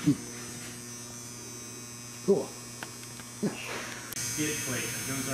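Steady electrical mains hum, broken by three short, loud thuds about a second apart near the start and middle. From about four seconds in, a hiss rises and faint voices come in.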